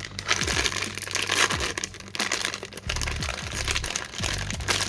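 Plastic blister and cardboard card of a die-cast toy car package being torn open by hand, crinkling and crackling with many small sharp snaps.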